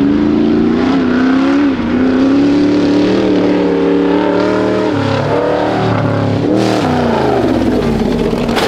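Off-road prerunner truck engine running hard at high revs, charging at a step-up jump. The engine note holds fairly steady, shifts about five seconds in, then falls in pitch around seven seconds in.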